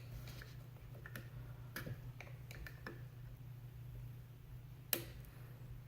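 Light scattered clicks and taps of metal tools working at the snap ring on an AC compressor pulley, with one sharper click near the end, over a steady low hum.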